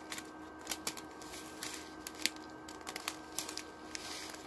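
Small plastic bags of diamond-painting drills being handled: scattered light clicks and rustles, with a faint steady hum underneath.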